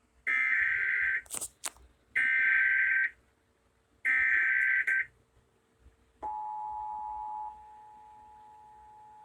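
Emergency Alert System SAME header: three identical bursts of warbling data tones, each about a second long. They are followed, about six seconds in, by the EAS two-tone attention signal, which is loud for about a second and then goes on more quietly.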